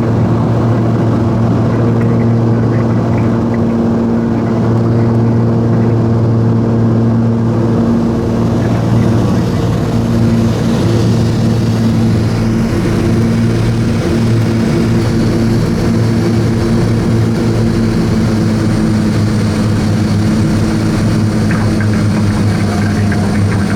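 Twin-engine Cessna 340A's pair of turbocharged 310 hp Continental TSIO-520 engines and propellers running with a steady, even drone.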